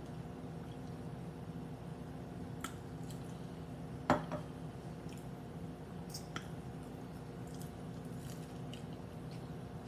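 Close-miked eating-table sounds: a few small clicks and soft squishes over a steady low hum, with a single sharp knock about four seconds in as something is set down on a wooden cutting board.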